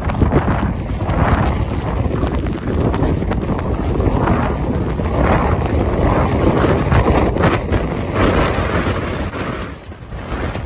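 Blizzard wind gusting hard across a phone's microphone, a loud rushing that swells and falls with each gust, easing briefly near the end.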